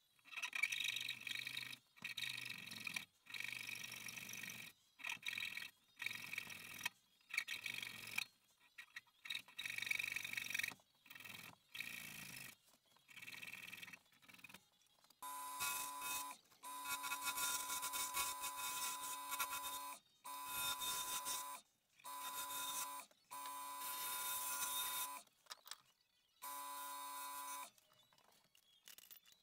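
Wood lathe motor whining at a steady pitch, the sound cutting in and out abruptly every second or so. Around the middle the whine changes to a different, lower-centred set of tones.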